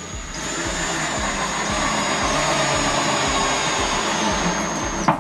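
Power drill-driver running steadily with a high whine for about five seconds while driving a screw through the board into a wooden lath, then cutting off suddenly near the end.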